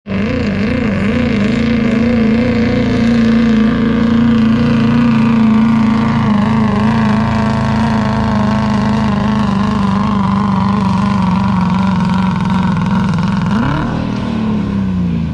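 Ford diesel pickup truck's engine held at full throttle, loud and steady, as it drags a weighted pulling sled down the track. Near the end the revs flare up and then fall away as the pull ends.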